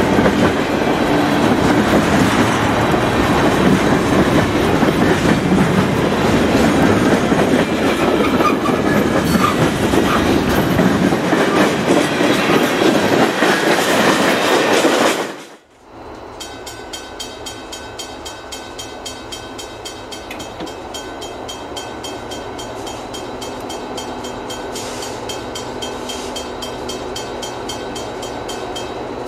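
Freight cars, tank cars and open hoppers, rolling past close by: a loud, steady clatter of steel wheels on rail. It cuts off abruptly about halfway through. A much quieter, steady rumble of a distant approaching train follows, slowly growing louder.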